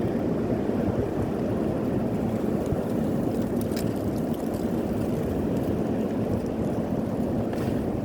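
Heavy wind blowing over the microphone: a steady low rush of noise with no let-up.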